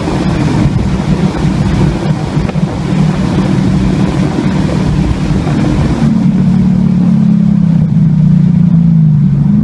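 Car engine running hard at about 100 mph, heard from inside the cabin with wind and road hiss over it. About six seconds in the hiss drops away and the engine tone stands out, then falls in pitch as the car slows.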